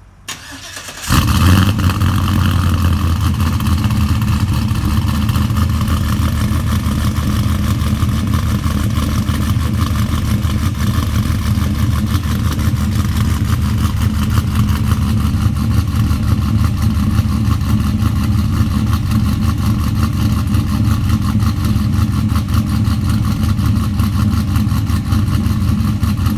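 Cammed 5.3-litre V8 with a BTR Stage 4 cam, long-tube headers and a 3-inch Magnaflow dual exhaust, cold started: the starter cranks for about a second, the engine catches and flares up loudly, then settles into a steady idle.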